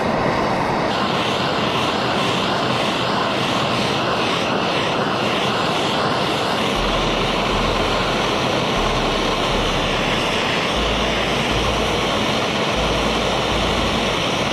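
Handheld gas torch burning with a steady roaring hiss as its flame heats a copper fitting on a steel tank for soldering.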